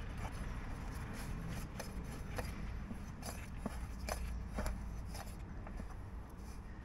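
Wing nut being turned down by hand on the centre stud of a 1977 Mazda B1600's metal air cleaner lid, giving small, scattered metal clicks and taps over a low background rumble.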